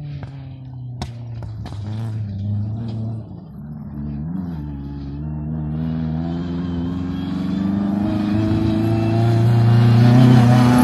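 Rally car engine approaching under load, its note rising and growing louder as it nears. A few sharp cracks come in the first two seconds, and the revs dip and pick up again about four seconds in.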